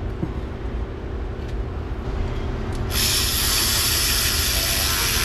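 A loud, steady hiss starts suddenly about three seconds in and cuts off abruptly about two and a half seconds later, over a steady low hum.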